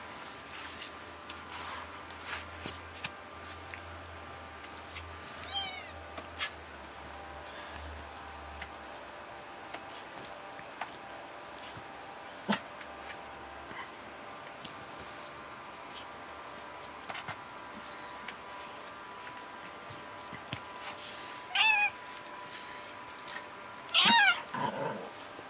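Tuxedo cat meowing in short calls that drop in pitch while it plays: a faint one about five seconds in, then two louder ones near the end, the last the loudest. Scattered light clicks and rustles come between the calls.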